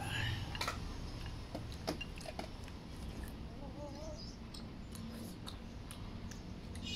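Two people eating stewed goose and vermicelli from ceramic bowls: slurping noodles and broth and chewing, with scattered short clicks of chopsticks against the bowls.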